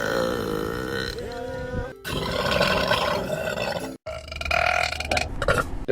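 Three long, loud burps from women, one after another, each cut off abruptly. The first has a clear, wavering pitch; the second is rougher and noisier.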